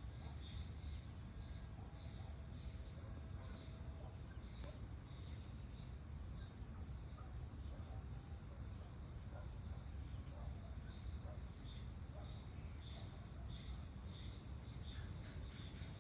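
Crickets chirping in the evening, a high chirp repeating about twice a second, over a steady low rumble.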